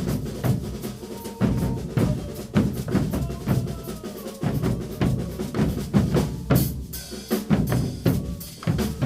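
Percussion ensemble playing a caboclinhos rhythm from Pernambuco: bass drums and snare drums beating a steady, driving pattern.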